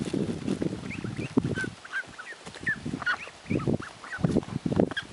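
A flock of domestic ducks crowding in to feed, giving repeated low raspy quacks in clusters, mixed with many short high peeps. The calls thin out briefly about two seconds in, then pick up again.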